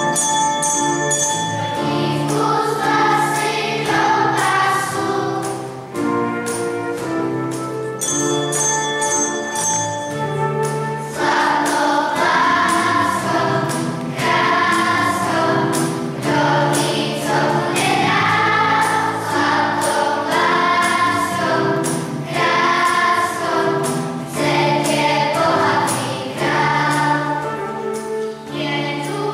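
Children's choir singing a song together, accompanied by piano, electric guitar and flute.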